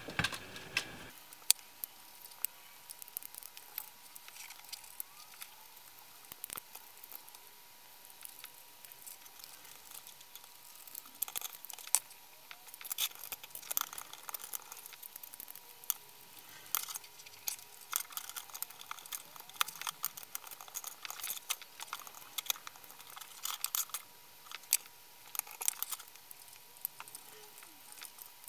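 Small plastic parts and a circuit board of a clamp-on current probe being handled and fitted back into its plastic housing: scattered light clicks and taps, busier in the second half, over a faint steady high tone.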